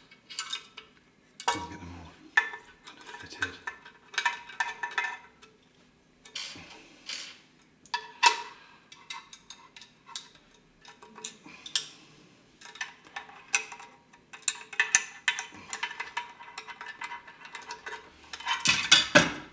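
Irregular clinks, clicks and short scrapes of metal: screws being started loosely with a Phillips screwdriver into a metal amplifier chassis panel while the box is handled and turned, with a denser, louder run of clatter near the end.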